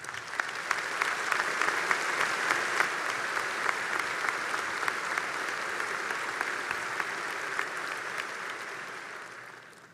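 A large audience applauding: dense, steady clapping that starts at once, holds, and dies away near the end.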